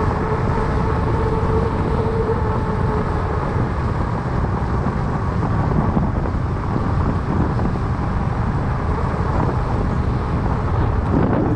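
Steady rumble of wind on the microphone and fat-bike tyres rolling on asphalt, with a faint hum in the first few seconds. A brief swell of noise comes near the end.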